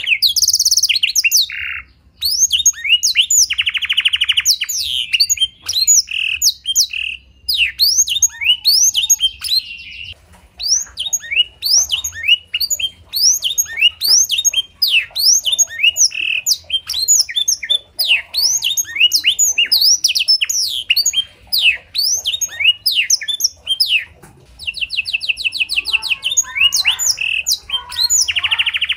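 Domestic canary with learned black-throated canary (blackthroat) phrases singing a long, continuous song. It is made of rapid repeated chirps that sweep down in pitch, broken several times by buzzing rolled trills.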